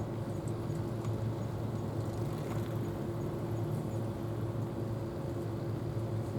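Steady low motor hum, unchanging throughout.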